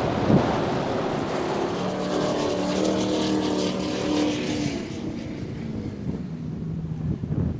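Motorboat engine passing close, a steady drone that is loudest a few seconds in and fades away after about five seconds. Wind buffets the microphone at the start.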